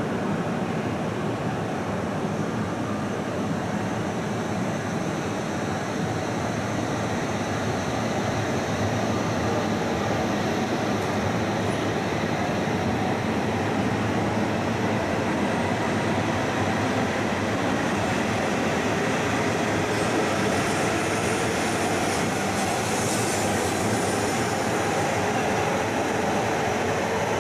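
Coupled E6 and E5 Shinkansen trainsets pulling out of the platform. Their wheels and running gear give a steady rumble that grows a little louder as the cars speed up. A higher hiss rises for a few seconds near the end, as the coupled noses pass.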